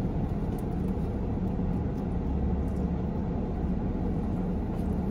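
Steady low rumble inside a car cabin, from the parked car running at idle.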